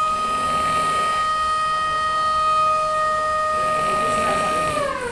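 A long, steady, high pitched tone with overtones, held unchanged and then sliding down in pitch at the end, like a siren winding down.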